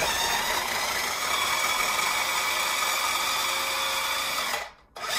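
Food processor motor running, chopping slices of peeled fresh ginger down to a fine mince. It stops briefly near the end and starts again.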